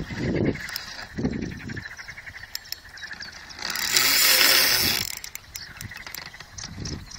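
Faint rapid ticking of a fishing reel's clicker as line is pulled off by a pike that has taken the live bait. A loud rustle of handling noise on the phone's microphone comes about four seconds in.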